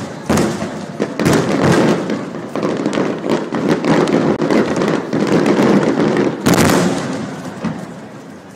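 Aerial fireworks shells bursting in a rapid barrage, many sharp bangs overlapping one another. A strong bang comes about six and a half seconds in, after which the bursts die away.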